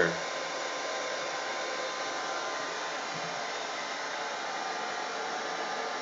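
Handheld hair dryer running steadily, an even rushing hiss of blown air with a faint steady motor hum.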